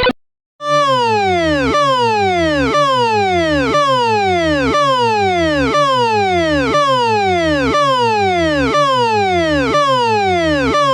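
Electronic emergency alarm siren: after a half-second break, a falling siren tone that repeats about once a second, each sweep gliding steadily down in pitch.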